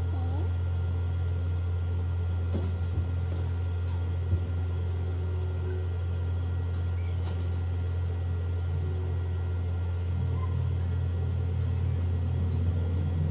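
Steady low hum at constant level, with two faint ticks about three and four and a half seconds in.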